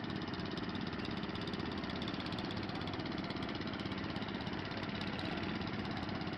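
Wheel Horse C120 garden tractor's 12 hp single-cylinder Kohler engine running steadily while the tractor drives slowly on the dirt pulling track.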